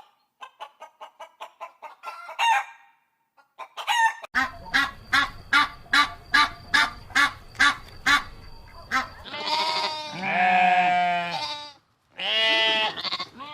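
Chickens clucking in runs of short notes, settling into about two clucks a second, then two long drawn-out calls near the end.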